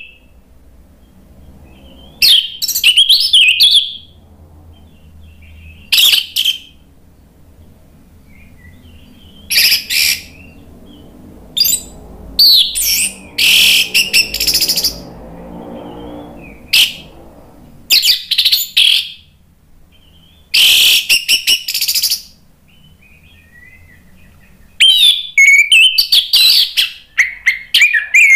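Orange-headed thrush (anis merah) singing: loud, varied phrases of high whistles and rapid notes, delivered in bursts of about one to three seconds with short pauses between. A longer, unbroken run of song begins near the end.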